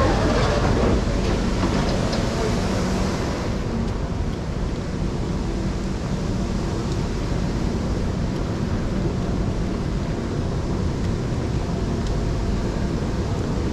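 Steady low rumble and hum of an underground metro station platform beside a stopped MRT train. A brighter hiss fades out over the first few seconds.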